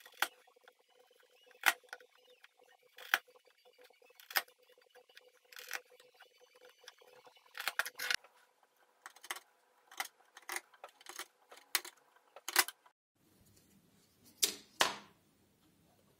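A hand chisel paring small pieces of wood, making sharp cracks and snaps as the slivers come off, roughly one a second with a quick run of them about halfway through. Near the end come two louder scraping knocks.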